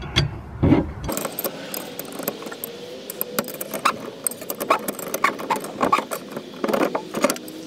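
Steel hand tools clicking and clinking irregularly as a wrench turns the separator nut to pull the drive shaft coupler off a boat's propeller shaft, with a couple of heavier knocks in the first second.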